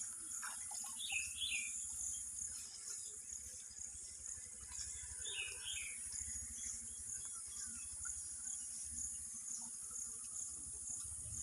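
Steady high-pitched insect drone, with a bird giving short chirping phrases twice: about a second in and again about five seconds in.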